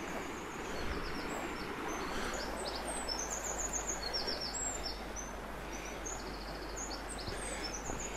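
Shallow rocky stream rippling steadily, with a small songbird singing short phrases of quick, high repeated notes over it.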